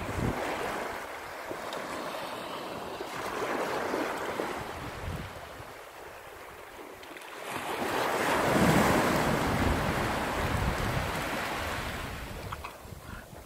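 Small sea waves breaking and washing up onto a sandy beach, swelling to a louder surge of wash about eight seconds in and easing off near the end, with wind buffeting the microphone.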